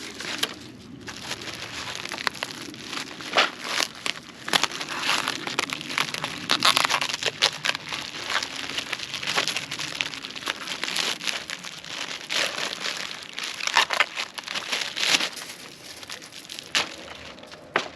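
Packaging material being handled and pulled off a new bike: irregular crinkling and crackling with sharp rustles.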